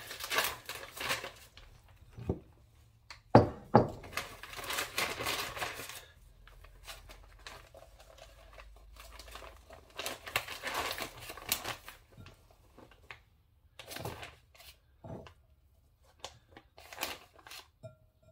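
Clear plastic vacuum-sealer bag crinkling and rustling in bursts as it is handled and filled by hand with flaked smoked fish, with a couple of sharp knocks a few seconds in and scattered small clicks and rustles near the end.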